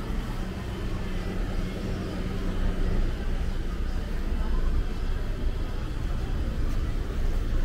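Downtown street ambience dominated by a steady low rumble of motor vehicles in traffic, with a low engine hum that holds steady and fades about three seconds in.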